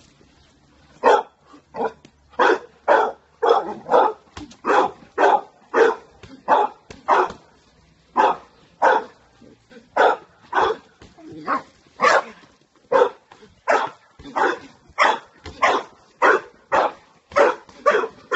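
A black dog barking over and over, a steady string of short, sharp barks at about three every two seconds.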